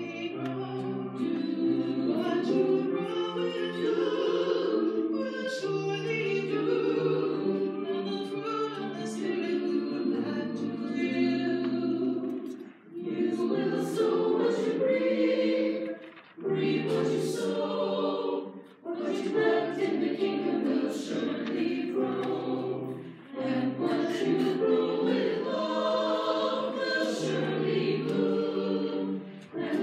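Mixed church choir singing an anthem in harmony, with brief breaks between phrases.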